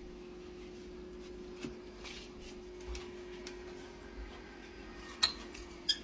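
Handling of a small foam egg incubator: a few light taps and clicks over a faint steady hum, then two sharp clicks near the end, less than a second apart.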